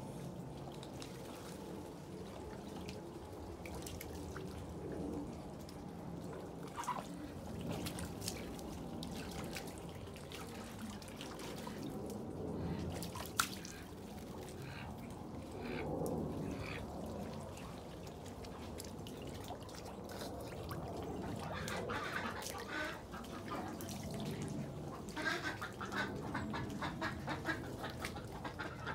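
White domestic ducks dabbling and splashing in shallow trays of water, with water dripping and soft duck sounds. There is a single sharp click about halfway through.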